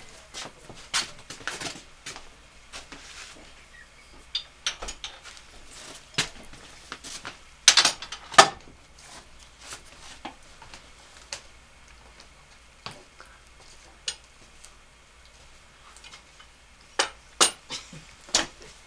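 Metal bar clamps clinking and clanking as they are handled at a wall rack of clamps: scattered sharp knocks, the loudest pair about eight seconds in and a few more near the end.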